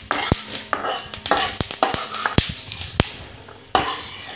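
Metal spatula scraping and tapping against an iron kadhai while roasted pearl millet grains are stirred and pushed out, with many sharp clicks.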